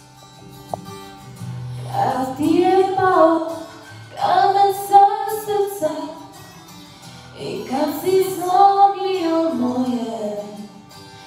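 A woman singing into a handheld microphone over a musical accompaniment: three long, slow sung phrases with pauses between them, over sustained low notes.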